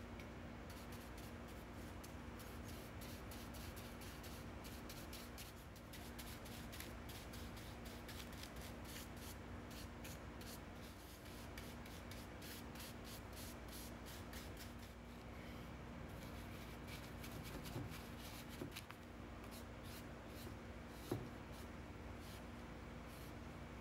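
Paintbrush laying flat black paint onto an MDF cube: a long run of soft, quick, scratchy brush strokes over a steady faint hum, with one sharp tap near the end.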